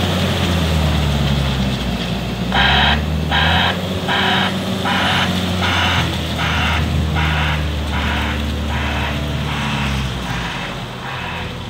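JCB 426Z wheel loader's diesel engine running as the machine manoeuvres. Its reversing alarm starts beeping about two and a half seconds in, about one and a half beeps a second, growing fainter toward the end.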